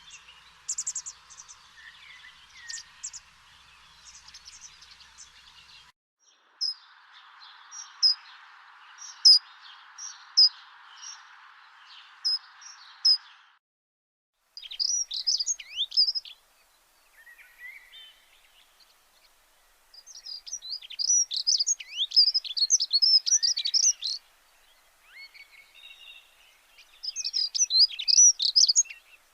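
Small birds chirping in quick, high, twittering bursts that come in clusters, over a faint hiss that drops out briefly twice.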